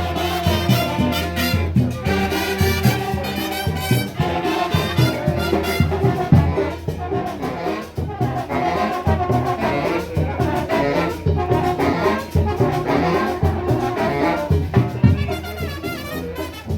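Marching band playing: trumpets and trombones over a steady drum beat.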